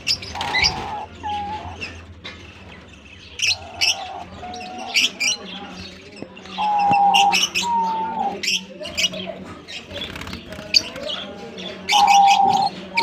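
Diamond doves cooing: soft, held notes that dip slightly in pitch, in phrases that recur several times. Short, high chirps from other small birds are scattered between them.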